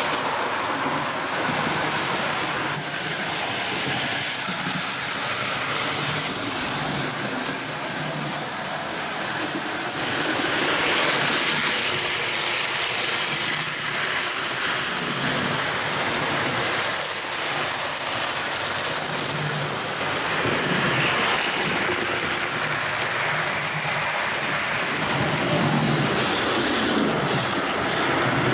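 Hornby OO gauge pannier tank model locomotive running on the layout: a steady motor whirr and wheel rumble on the rails, getting a little louder about ten seconds in and again about twenty seconds in.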